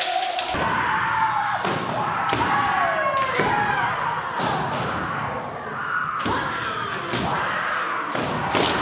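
Kendo practice: several sharp bamboo shinai strikes and stamping footwork on a wooden dojo floor, with long falling kiai shouts from the fencers between the strikes.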